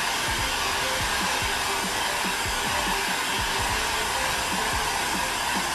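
Heat gun running steadily, blowing hot air to soften a sheet of Worbla thermoplastic.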